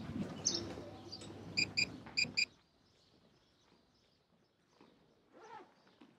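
Outdoor ambience with a few light knocks and a quick run of short high chirps. About two and a half seconds in, the sound cuts off to near silence.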